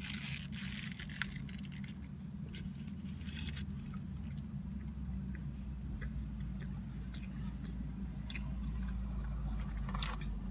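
A person biting into and chewing a bacon cheeseburger on a pretzel bun, close to the microphone: soft wet mouth sounds with scattered short clicks, over a steady low hum.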